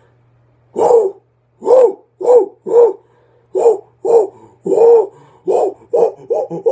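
Gigantopithecus creature sound effect: a run of about eleven short hooting grunts, each rising and then falling in pitch, coming faster toward the end.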